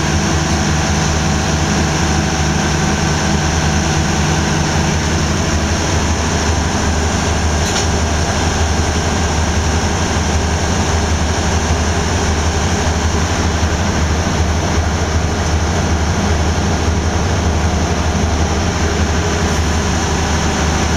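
Diesel locomotive engine running steadily, a low even drone that does not change, heard close by during uncoupling. A single sharp click about eight seconds in.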